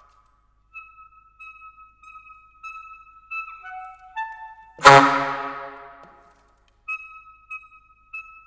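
Saxophone playing sparse contemporary music: short, faint, thin high notes separated by pauses. About five seconds in comes a sudden, very loud, low percussive attack that rings away over a second and a half.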